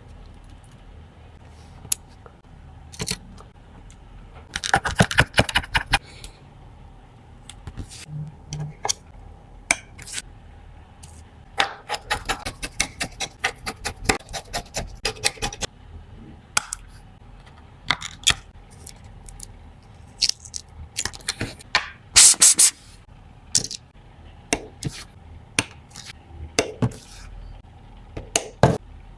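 Small metal tools and phone parts clicking, tapping and scraping against an iPhone XR being taken apart for a housing swap, in irregular clusters with denser runs of scraping about five seconds in, in the middle and about three-quarters of the way through. A faint steady hum runs underneath.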